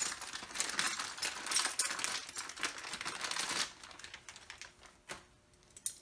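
A new set of combination wrenches being unwrapped by hand: the wrapping crinkles and rustles while the steel wrenches click lightly against each other. The handling dies down after about three and a half seconds, leaving one more click near the end.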